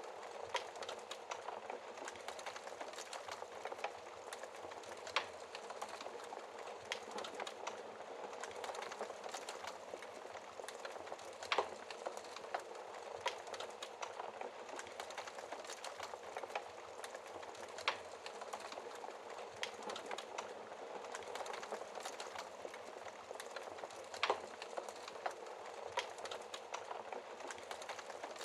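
Wood fire in a fireplace crackling steadily, with a few sharper, louder pops every several seconds.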